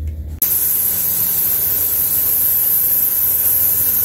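A loud, even hiss that starts abruptly about half a second in, replacing a low hum.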